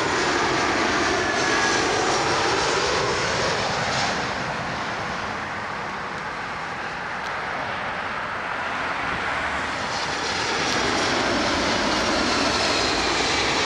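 Airbus A319 jet airliner passing at close range. Its engine noise eases off about midway and swells again toward the end.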